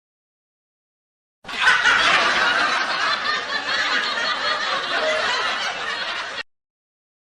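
Laugh-track sound effect: a crowd laughing together for about five seconds, starting about a second and a half in and cutting off abruptly.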